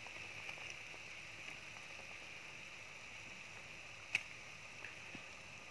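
Thick red fish curry gravy boiling in a pan, a faint steady bubbling, with one sharp click about four seconds in.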